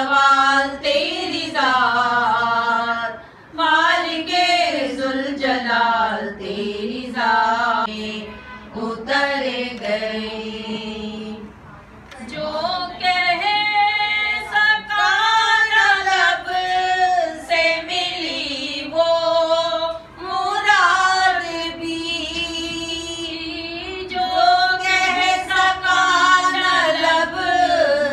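Unaccompanied female singing of an Islamic devotional song in long, wavering melodic phrases, broken by a few short pauses for breath.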